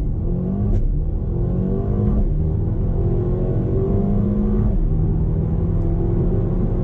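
Mercedes-AMG A35's turbocharged four-cylinder engine at full throttle after a launch-control start, rising in pitch through the gears. There are quick upshifts about one, two and nearly five seconds in.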